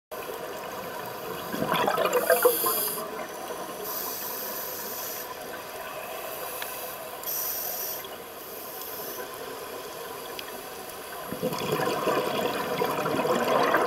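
Scuba regulator breathing underwater: hissing inhalations alternating with gurgling rushes of exhaled bubbles. The loudest bubble rushes come about two seconds in and again from about eleven seconds.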